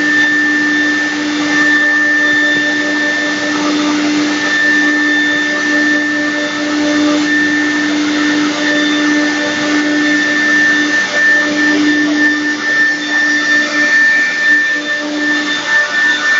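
CNC router's automatic-tool-change spindle running at speed with a steady whine, its bit cutting a wavy relief pattern into a board.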